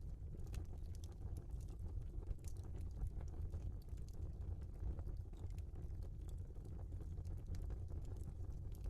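Log fire burning in a fireplace: a steady low rush with many small crackles and pops at irregular moments throughout.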